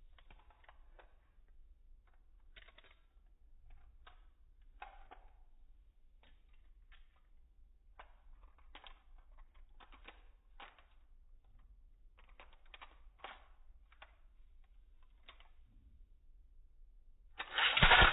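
Faint scattered clicks and light taps over a low hum. Near the end comes a sudden loud, rattling clatter as a Beyblade top is launched and lands spinning in the plastic stadium.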